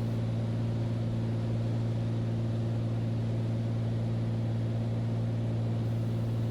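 Beechcraft Bonanza's single piston engine and propeller droning steadily in flight as a constant low hum, with no change in power.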